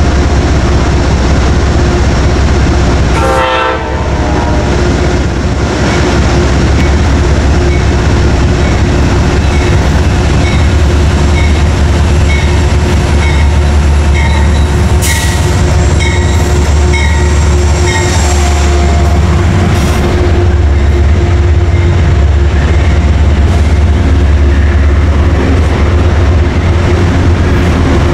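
Amtrak GE Genesis diesel-electric locomotive and its passenger cars passing close by at a station, with a loud steady rumble and repeated clicking from the wheels over the rail joints.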